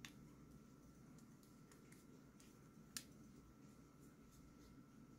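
Near silence: faint room tone with a few soft clicks of a screwdriver working the pivot screw of a folding knife, one sharper click about three seconds in.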